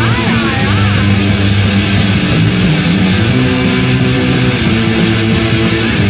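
A punk rock song with strummed, distorted electric guitar and bass guitar playing loudly.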